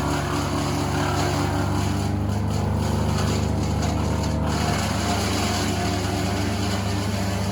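Heavy tree-service machinery engine running steadily under load, with a rushing noise that thins out briefly a couple of seconds in.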